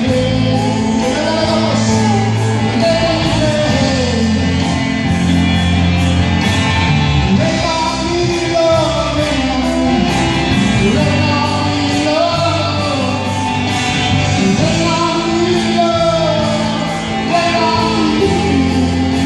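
Live gospel rock band playing: electric guitars, bass guitar and drum kit, with singing over them.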